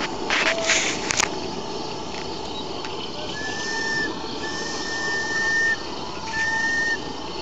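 Steam whistle on a model river steamboat blowing three blasts at one steady pitch: a short one, a longer one, then another short one. Each blast carries a hiss of steam. A few short bursts of hiss come in the first second.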